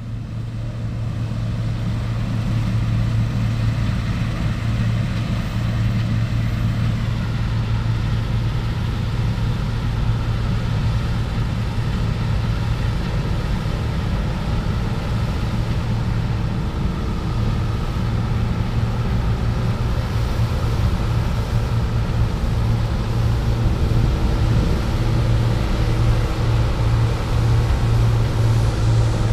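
Claas Tucano combine harvester and a tractor running side by side with a steady low engine drone, slowly growing louder, as the combine unloads grain into the tractor's trailer on the move.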